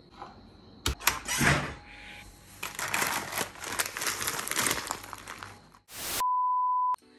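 Crinkling and rustling of packaging being handled, followed near the end by a short steady beep.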